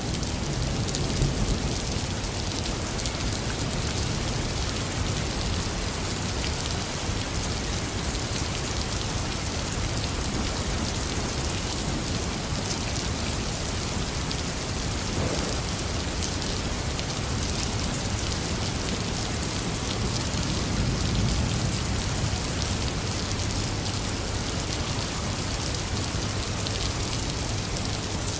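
Heavy rain falling steadily. A low rumble of thunder fades out in the first second or two, and another low rumble of thunder swells and dies away a little past the middle.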